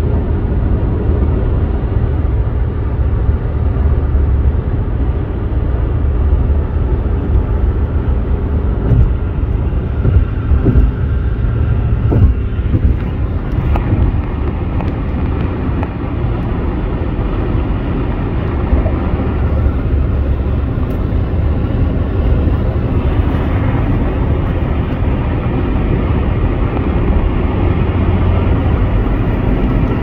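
A car driving at highway speed, heard from inside the cabin: a steady low rumble of tyres and wind, with a few brief thumps about ten to twelve seconds in.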